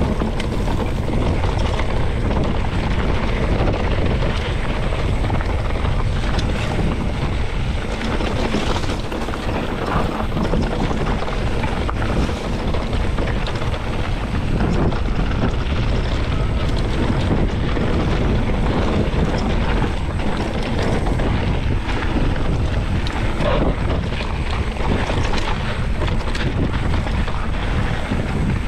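Wind buffeting an action camera's microphone and mountain-bike tyres rolling over a dry dirt trail at speed, a steady rushing noise with scattered clicks and knocks from the bike over rough ground.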